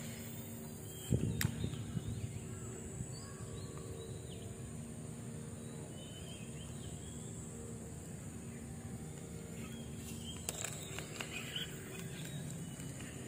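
Outdoor swamp ambience: a steady high-pitched drone with brief bird chirps now and then, over a low wind rumble on the microphone. A thump about a second in and a few faint clicks from handling.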